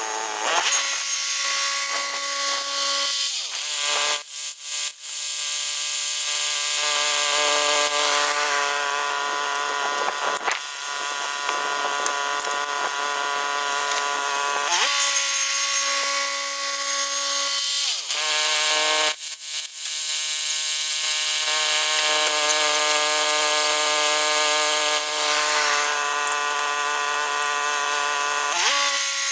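Woodland Mills HM122 portable bandsaw mill's engine running with its band blade cutting a large pine log, a steady mechanical note over a high hiss. The engine note sags and recovers several times as the cut loads it, with brief dips about four, ten and nineteen seconds in.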